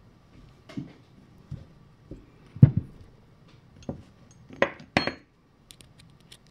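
Steel parts of a 1920s NSU bicycle hub being handled and set down on a cloth-covered workbench: a string of separate knocks and clinks. The loudest is a dull knock about two and a half seconds in, a clink with a short metallic ring comes about five seconds in, and light ticks follow near the end.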